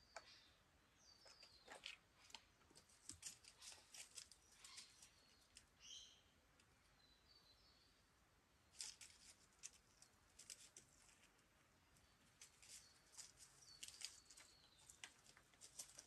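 Faint crackling of a smoky campfire, short sharp ticks coming in clusters, with a few brief bird chirps.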